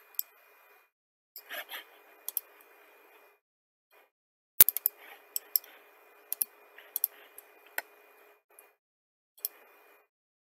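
Computer mouse clicking: about a dozen sharp clicks at irregular intervals, the loudest about four and a half seconds in, over faint hiss.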